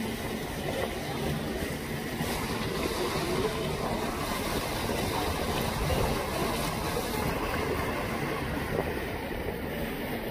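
Motorboat under way: a steady engine rumble mixed with water rushing and splashing along the hull.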